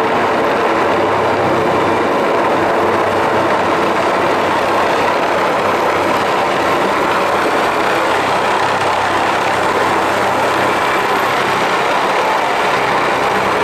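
Helicopter close by, its rotor and engine making a loud, steady noise.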